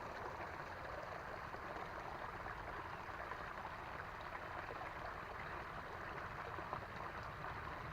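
Steady, faint rushing of a small creek's running water, with no distinct events.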